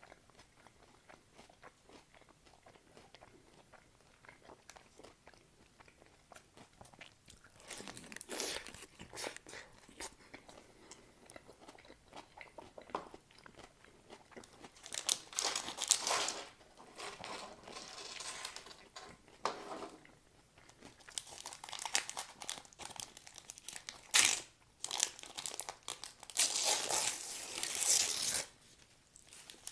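Close-up eating sounds of a shawarma: bites into the wrap and wet, crunchy chewing. These come in separate bursts after a quiet start and grow denser in the last third.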